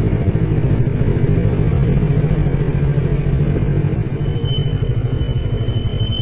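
Motorcycle engine running steadily at low road speed, with a fast even pulsing. A thin, steady high whistle joins about four seconds in.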